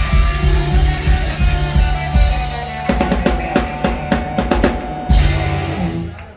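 Live rock band playing loud, with a full drum kit driving it; about halfway through the drummer plays a quick run of sharp hits, and the music drops off right at the end.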